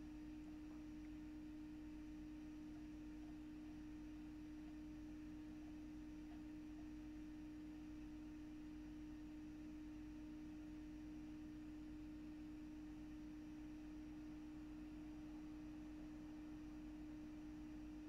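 Faint, steady electrical hum: one low, unchanging tone with a few weaker tones beneath it, and nothing else.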